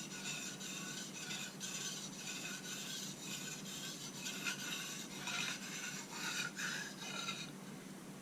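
Steel knife blade stroked back and forth on a wet 1000-grit Japanese water stone, giving a gritty scraping about once a second that eases off near the end.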